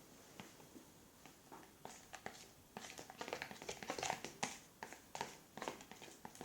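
White glue and paint slime base being stirred in its container: quick, irregular scrapes and clicks that grow busier from about two seconds in.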